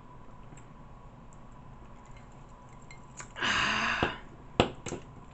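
Low room background, then about three and a half seconds in a single loud, breathy outburst from the eater lasting under a second, a bodily noise she apologises for, followed by two sharp clicks.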